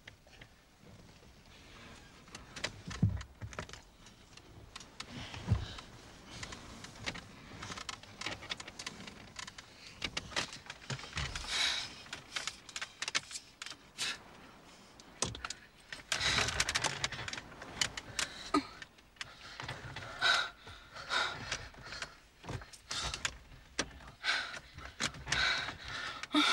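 Irregular clicking and rattling, busier and louder in the second half.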